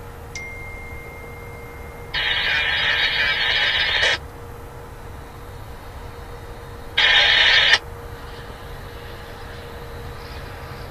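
Railroad scanner radio: a click and a steady beep tone for about a second and a half, then two sudden bursts of static hiss that cut off sharply, the first about two seconds long and the loudest, the second shorter. Under it runs the low rumble of a diesel locomotive.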